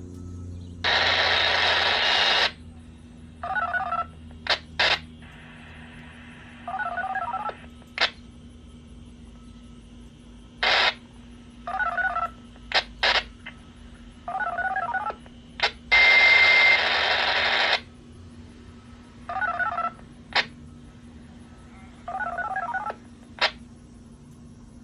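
Short sequences of touch-tone (DTMF) beeps, about six of them spaced a few seconds apart, with two long bursts of hissing static and several sharp clicks in between.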